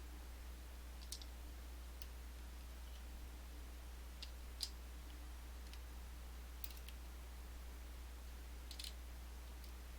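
A few scattered light metallic clicks as the small steel discs of an Abloy Classic lock core are taken out and set down, the sharpest one a little under halfway through.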